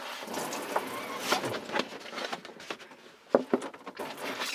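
Breath blown into the air hole of a plastic milk-jug siphon shower to prime it, with plastic handling noise and a couple of sharp knocks about three seconds in.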